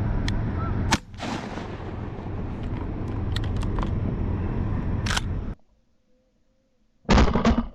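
Steady wind and water noise with a few sharp clicks, cutting off abruptly about five and a half seconds in; near the end a very loud, sharp shotgun blast.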